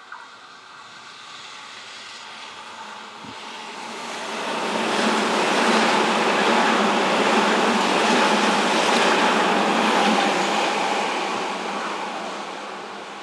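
Electric train passing by: the running noise of the wheels on the rails builds over a few seconds, holds loud with a steady whine, then fades away.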